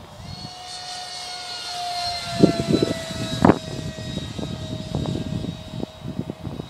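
The 64 mm electric ducted fan of a Hobbyking T-45 Goshawk RC jet whining in flight. It grows louder over the first two seconds, and its pitch falls slightly. Several sharp thumps come from about two and a half seconds in.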